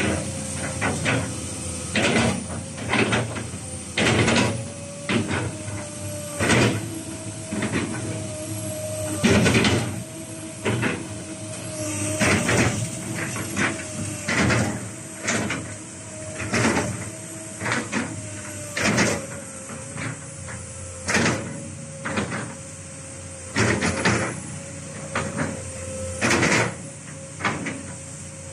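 Komatsu PC240LC-8 hydraulic excavator running with a steady whine from its engine and hydraulic pump while the boom, arm and bucket are worked. Many short bursts of noise from the hydraulics and linkage come roughly once a second.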